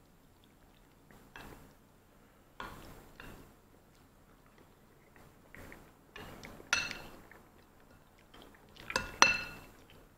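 Metal spoon scraping and clinking against a ceramic bowl while scooping mac and cheese, in short scattered strokes. The loudest are ringing clinks a little past halfway and a double clink near the end.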